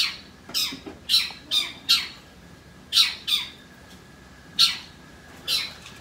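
Long-tailed shrike (cendet) calling: about nine short, sharp calls, each falling steeply in pitch, given in quick runs with brief pauses between.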